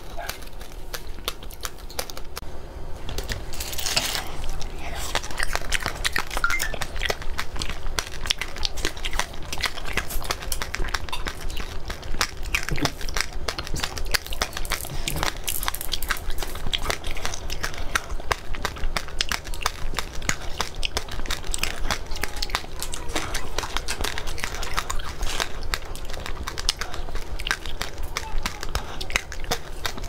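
Close-miked biting and chewing of a yellow, black-seeded treat on a stick: dense crackling and crunching, with many small clicks all through.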